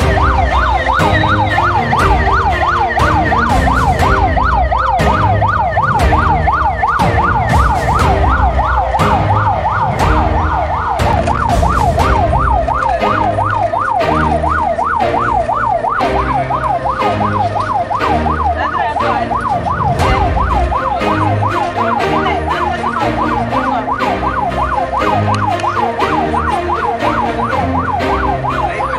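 Ambulance siren in a fast yelp, rising and falling about three to four times a second, over background music with a steady beat.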